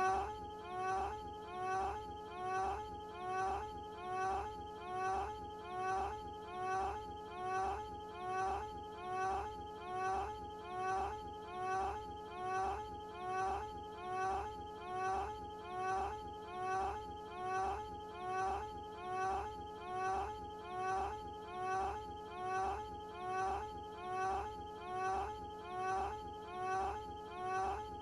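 Carl Wheezer's cartoon voice moaning "ahh", one short moan looped over and over at about one a second.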